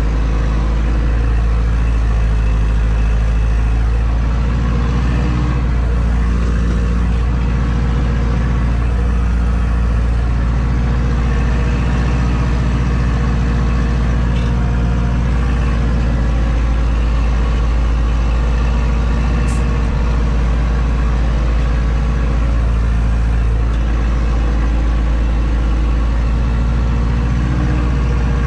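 Zetor tractor's diesel engine running steadily under load while ploughing, heard from inside the cab.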